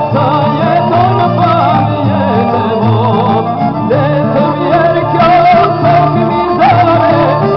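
Albanian folk song: a voice sings a wavering, ornamented melody over plucked-string accompaniment and steady low notes.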